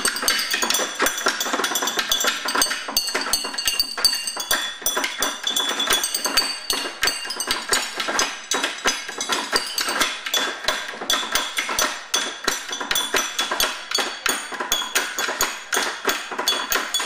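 Percussion ensemble playing a fast, steady rhythm of sharp clinking, metallic-sounding strikes mixed with drum hits.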